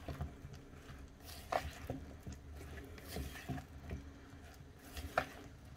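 Silicone spatula stirring floured zucchini chunks in beaten egg in a bowl: faint wet squishing with a few soft clicks of the spatula and pieces against the bowl.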